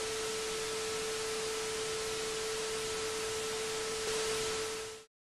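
Analog-TV static hiss with a steady, single-pitched tone held over it, both cutting off suddenly near the end.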